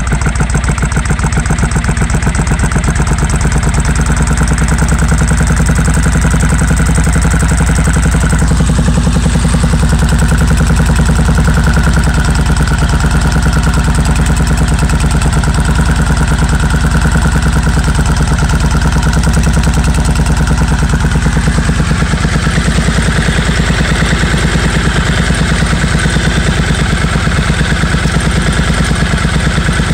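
Suzuki Marauder V-twin motorcycle engine idling steadily, with one of its two carburettors still out of adjustment.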